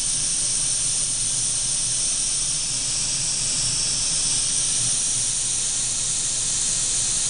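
Steady, even hissing with a low rumble underneath.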